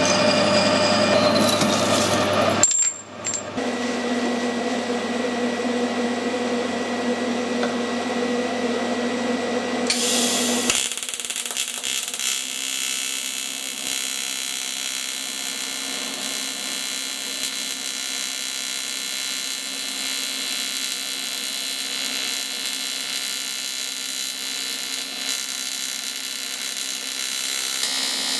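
A metal lathe turning steel bar stock for the first couple of seconds, then another steady machine sound with a hum for several seconds. From about eleven seconds in comes the steady buzzing hiss with a low hum of a TIG welding arc fusing aluminium.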